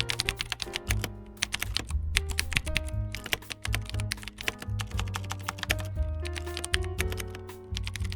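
Rapid, irregular clacking of a computer keyboard being typed on hard, as in gaming, over background music with a pulsing bass.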